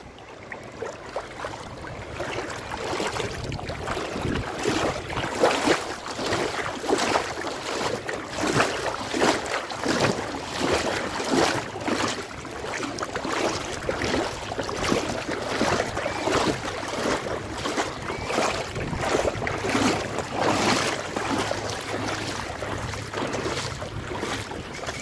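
Feet wading through shallow sea water, splashing in a steady rhythm of about one and a half splashes a second.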